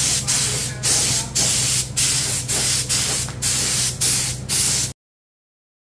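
Pressurised spray hissing in short repeated bursts, about two a second, over a steady low hum; it cuts off abruptly about five seconds in.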